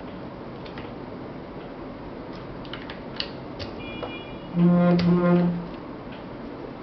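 A short high electronic tone, then a loud buzz with a pitched, rattly edge lasting about a second and broken once in the middle. It is a phone alerting that it has started charging from a USB power bank. Light handling clicks from the cable and device come before it.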